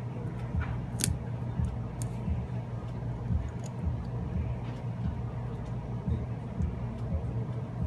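Small clicks and taps of metal repair tools on a smartphone's internal parts as its charge port is worked loose, the sharpest about one and two seconds in, over a steady low hum.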